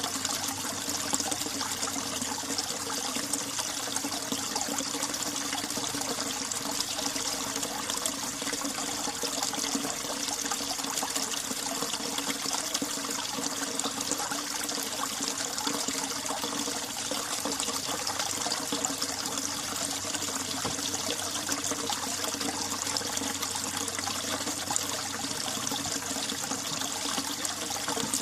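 Mountain valley stream running steadily in winter, water trickling and splashing with no break or change.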